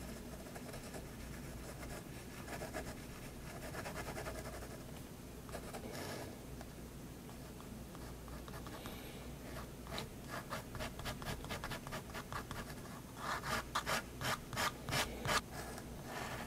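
Staedtler 0.3 mm pigment liner scratching across sketchbook paper: a few longer line strokes, then quick short hatching strokes, loudest as a run of about three to four strokes a second near the end.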